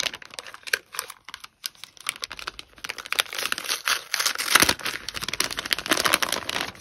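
A plastic packaging pouch and then a kraft-paper envelope being handled and opened by hand: close crinkling and rustling with many small crackles, densest and loudest in the second half.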